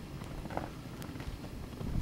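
Blizzard wind buffeting the microphone, a steady low rumble, with a few faint ticks.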